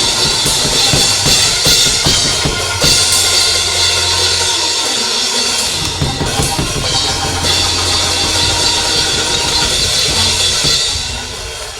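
Live church band playing loudly: drum kit with kick drum, snare and cymbals over a steady bass line and sustained chords, easing down near the end.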